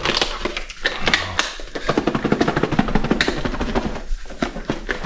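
Perch fillets being shaken in flour in a hand-covered container: a fast, rhythmic rattling and tapping, busiest in the middle.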